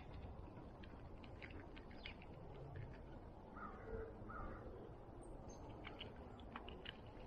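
A crow cawing twice, faintly, a little past the middle, over a low outdoor background with scattered short sharp clicks.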